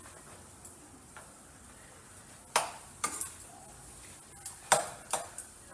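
Metal utensil clacking and scraping against a nonstick frying pan as cooked ground beef is scooped out. Several sharp knocks come from about halfway through to near the end.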